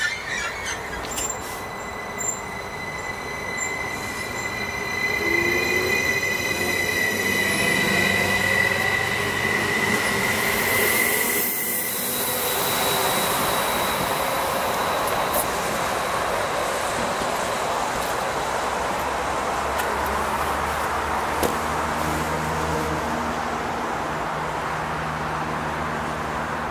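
Stadler FLIRT electric multiple unit (NSB Class 75) pulling out and accelerating away. A steady high whine holds for the first twelve seconds or so, and the traction motors whine upward in pitch as it gathers speed. After that comes an even rush of wheels on rail as it draws away.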